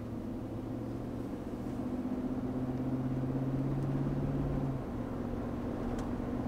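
Vehicle engine running steadily, a low hum that shifts slightly in pitch a couple of times and dips a little a few seconds in.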